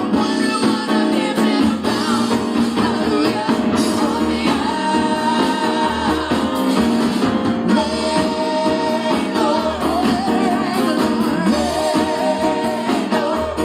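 Church praise team singing gospel music with live band accompaniment.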